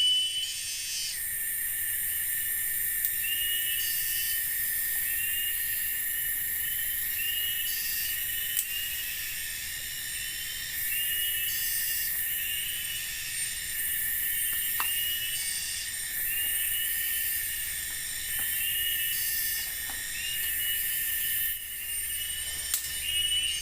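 Forest insects calling: a steady high drone, a short chirp repeating about once a second, and a shrill buzz that swells and cuts out every couple of seconds.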